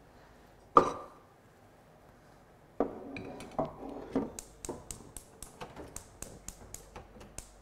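A metal clank about a second in, then pot-and-stove clatter as a cooking pot is set on the gas hob, followed by the hob's electric igniter clicking rapidly, about four clicks a second, while a burner is being lit.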